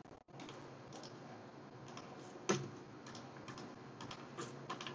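Faint, scattered clicks from a computer keyboard and mouse, with one louder click about two and a half seconds in.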